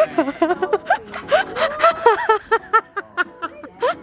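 Laughter: a run of quick, pitched giggles, several a second.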